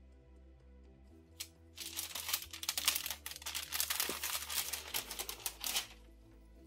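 A sheet of baking paper rustling and crinkling for about four seconds as it is handled and peeled back, after a single light click. Soft background music plays underneath.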